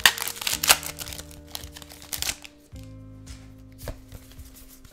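A foil booster-pack wrapper is torn open and crinkled for about two seconds. After that come quieter rustles and a click as the trading cards are slid through by hand, over soft background music.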